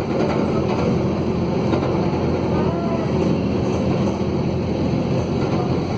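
Mercedes-Benz OM904LA four-cylinder turbodiesel of a midibus running steadily under way. It is loud and rough because of a broken exhaust.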